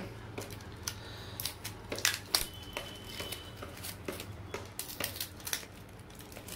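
Cling film being peeled and pulled off a plastic takeaway food container, crinkling and crackling in short, irregular snaps, over a faint steady low hum.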